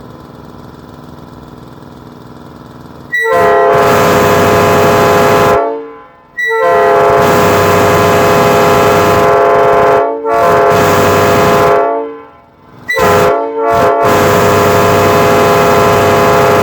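Locomotive multi-chime air horn sounding, several steady tones at once. After about three seconds of a fainter steady hum it blows a long blast, a second long blast, a short one and another long one, the long-long-short-long pattern of a grade-crossing signal.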